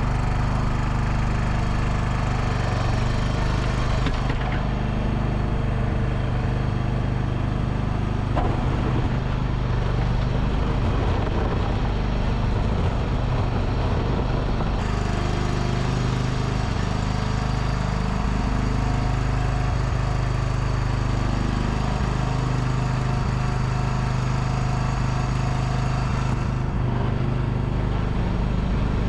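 Engine of the feed-pushing machine running steadily at a constant speed while the feed is pushed up to the cows.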